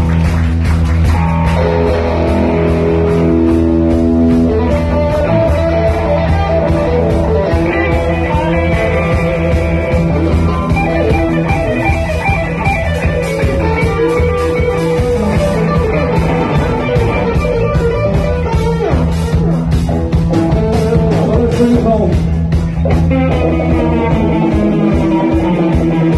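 Rock band playing: electric guitars, bass guitar and drums, with a guitar playing melodic lead lines that bend in pitch through the middle of the passage.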